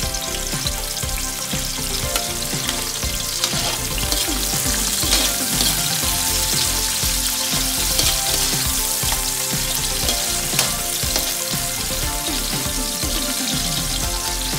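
Sliced red onions and garlic sizzling in hot cooking oil in a wok, stirred with a metal ladle.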